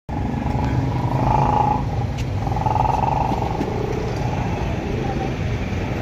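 A steady, low engine rumble, like a motor vehicle running close by, with a couple of faint clicks.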